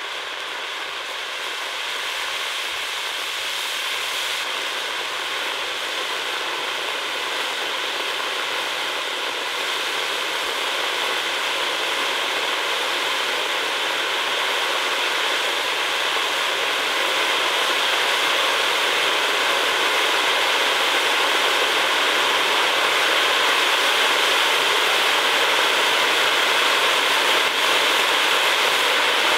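Hirt & Co Stern Zauber category-2 firework fountain burning, its jet of sparks giving a steady hiss that slowly grows louder.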